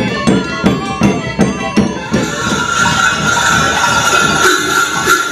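Large Sardinian frame drums beaten in a steady beat, about two and a half strokes a second, with a small pipe playing a tune over them. About two seconds in this cuts to the dense, continuous clanging of the many cowbells hung on a horned Mamutzone carnival costume.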